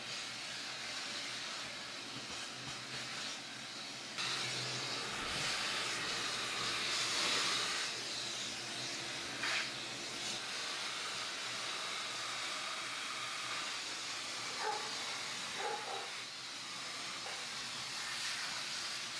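Shop vacuum running steadily, its crevice tool sucking up particle-board dust and shavings from a freshly planed countertop. The noise gets louder about four seconds in, and a few brief clicks and rattles come through later on.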